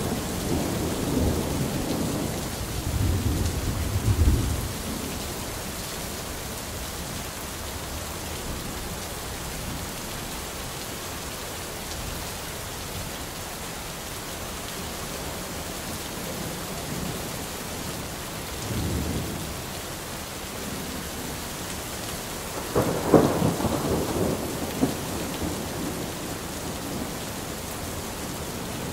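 Thunderstorm: steady rain hiss with rolling thunder. A rumble fades away over the first few seconds and a weaker one comes about two-thirds of the way in. A louder, sharper thunderclap about three-quarters of the way in rumbles off over a few seconds.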